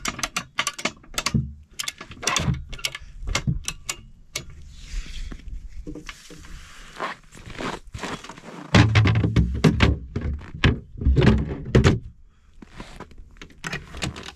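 A storage box being tied down to a sled by hand with straps: scattered clicks and knocks of strap hardware and the box, a rustling stretch about five seconds in, and heavier thuds from about nine to twelve seconds in.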